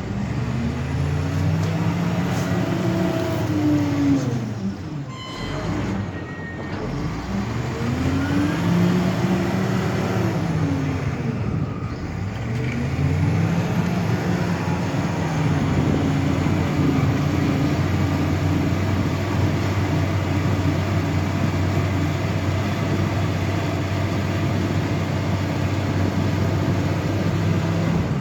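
Heavy vehicle engine working, its pitch rising and falling in three long swells over the first dozen seconds, then holding at a high, steady speed.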